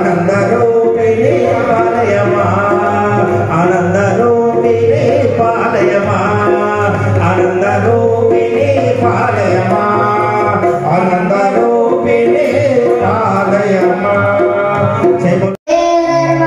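Devotional bhajan singing with musical accompaniment, amplified through microphones and a loudspeaker. Near the end the sound drops out for an instant and a new sung phrase begins with a long held note.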